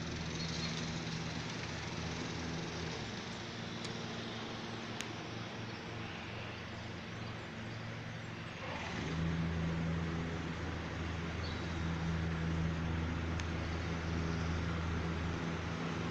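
Steady low hum of a running motor vehicle engine, getting louder about nine seconds in.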